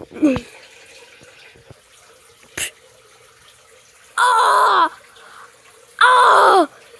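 A child's voice making two short, loud, high-pitched squeals about two seconds apart, with a soft click before them.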